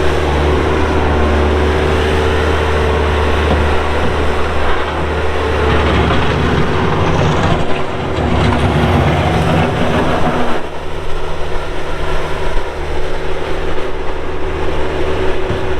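2004 Bobcat A300 skid steer loader with its Kubota diesel engine running steadily at working speed. Its note changes for a few seconds about halfway through, then settles again.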